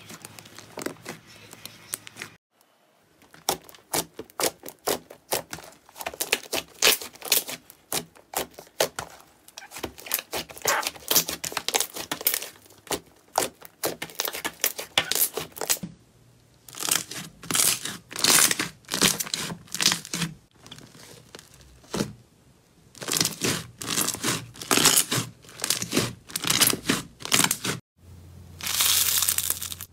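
Slime being pressed and squeezed by hand, giving rapid crackling and popping as air pockets in it burst. The crackling runs almost without a break at first, then comes in squeezes of a second or two with short pauses, and near the end turns to a denser, crunchier crackle as a sponge-textured slime is squeezed.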